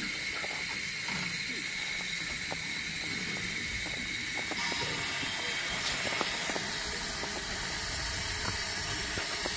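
Replica Union Pacific No. 119 steam locomotive standing still under steam, giving off a steady hiss.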